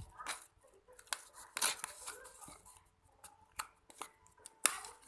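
Irregular short scrapes and clicks, about six of them, from hands handling slime-making materials and utensils, the loudest about one and a half seconds in and near the end.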